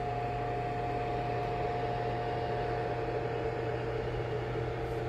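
Presto Dehydro food dehydrator running mid-cycle while drying apple slices: its fan blows with a steady hum and a constant whine.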